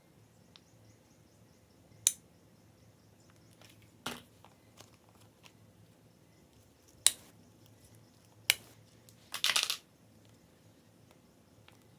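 Slime being squeezed and worked by hand, giving a few separate sharp pops and clicks and a brief crackling run of pops about nine and a half seconds in.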